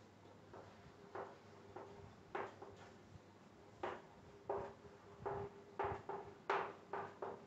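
Chalk writing on a blackboard: a run of short taps and scrapes of uneven spacing as figures and plus signs are drawn, busier in the second half. A faint steady low hum lies underneath.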